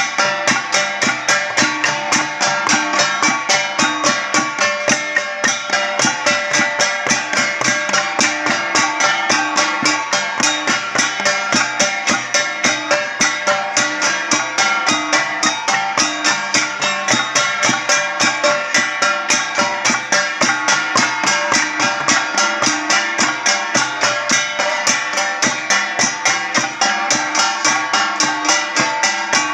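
Traditional Ifugao gong music: a gangsa ensemble of flat bronze gongs striking a fast, even beat, the gongs ringing together.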